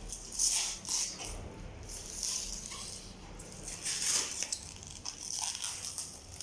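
Packing material rustling and crinkling in irregular bursts as a new microwave oven is unwrapped by hand.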